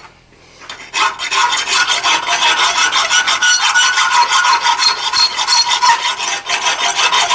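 Flat file rasping back and forth across a forged iron cabinet handle held in a vise, starting about a second in and going on in steady, rapid strokes to smooth the surface.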